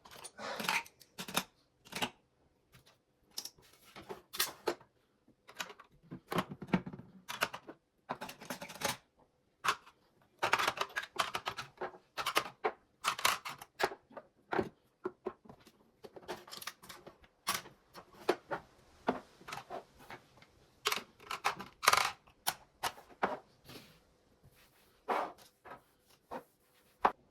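Irregular clicks and light clattering of small hard objects being handled, in clusters with short pauses between them.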